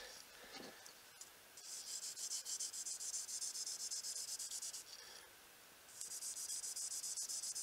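Knife blade being stroked along fine 5000-grit wet sandpaper on a backing block to hone its edge: a steady high, scratchy hiss in two runs, with a pause about five seconds in.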